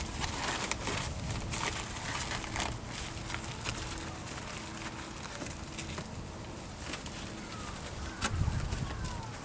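A faint, steady buzz with scattered light clicks and a soft low thump near the end.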